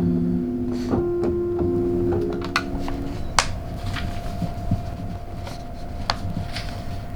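Sustained keyboard notes held as chords and released about three seconds in. After that a single steady tone hums on, with scattered light clicks.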